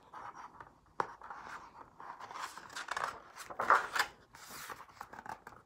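Paper pages of a picture book being handled and turned: a single sharp tap about a second in, then rustling and swishing paper, loudest near four seconds in as the page flips over.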